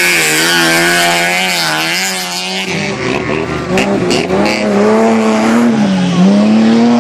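Engines of stock cars running hard on a dirt track, the engine note rising and falling as the drivers rev and lift through the corner. About three seconds in a different car's engine takes over, with a few sharp knocks a second later.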